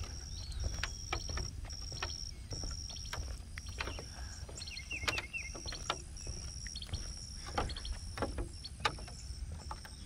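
Outdoor ambience dominated by an insect calling in regular high-pitched pulses, each about half a second long and a little under one a second, over a low steady rumble, with scattered sharp clicks and a few brief bird chirps.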